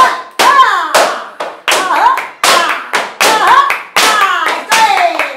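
Flamenco palmas: a group of children and their teacher clapping hands in a fast, uneven rhythm, about three claps a second. Voices call out over the claps in short shouts that rise and fall in pitch, cheering the dancer on.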